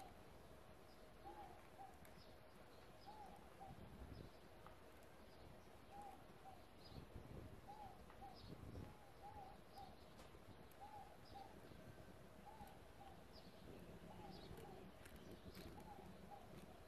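Faint bird calls over near silence: a short arched note repeated about once a second, with fainter high chirps between.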